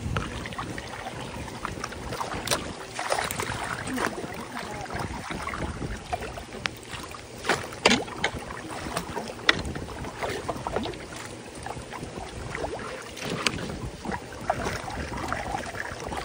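Muddy floodwater sloshing and splashing as a wader boot and a long-handled fork churn it to free debris from a clogged culvert inlet, with many sharp splashes throughout. Raindrops land on the water.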